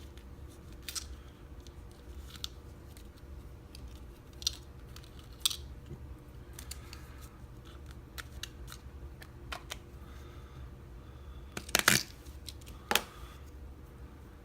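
Scattered small metal clicks and light scrapes of picking tools working inside a Kale dimple lock cylinder, with a sharper close pair of clicks about twelve seconds in and another a second later.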